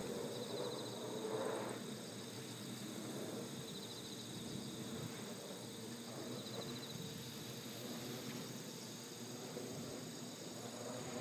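Insects trilling in short pulsed bursts, repeated every two seconds or so, over a steady outdoor background hiss.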